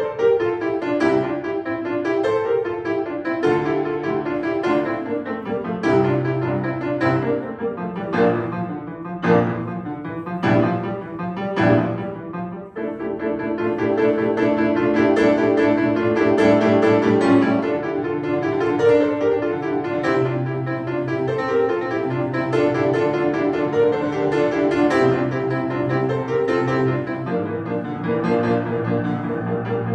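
Grand piano played solo. Accented chords strike about once a second, then after about thirteen seconds the playing turns into a continuous, busy running passage.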